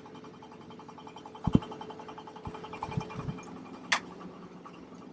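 A steady mechanical hum runs under handling noises: a dull thump about a second and a half in, a few softer thumps after it, and a sharp click near the end.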